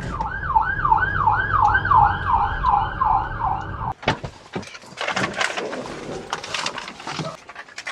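Emergency-vehicle siren on a fast yelp, its pitch rising and falling about three times a second, over the low rumble of traffic. It cuts off suddenly about four seconds in, and scattered clicks and rustling follow.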